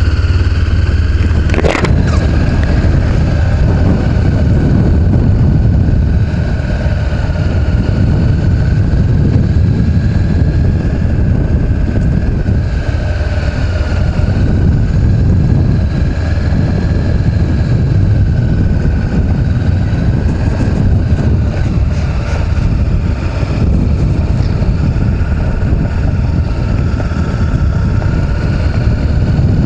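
Honda CB500X's parallel-twin engine running at low speed, a steady low rumble, with wind noise on the microphone and a faint wavering whine.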